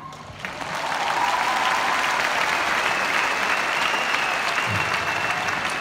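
Large arena concert crowd applauding and cheering. The applause swells during the first second, then holds steady and dense, with a long high whistle from the crowd over it in the second half.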